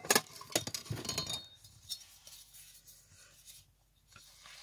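A metal ruler clinking and knocking as it is picked up and laid across a ring-binder planner, several sharp clicks in the first second and a half, then only faint small handling ticks.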